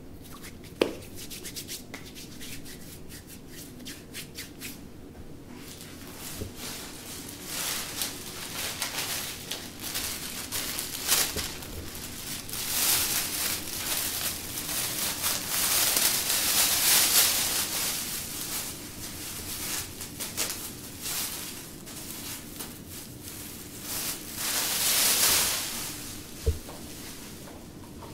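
Hands rubbing together in quick strokes during hand hygiene, then a thin disposable plastic apron being unfolded and put on, rustling and crinkling in long irregular stretches. A single soft knock comes near the end.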